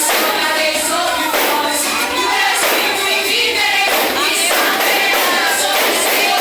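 A church vocal group singing a worship song together over instrumental accompaniment with a steady beat. The sound is thin, with almost no bass.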